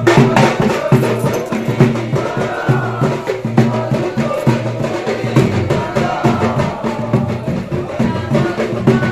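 Music with a steady drum beat and clacking percussion strikes, with a singing voice rising and falling now and then over it.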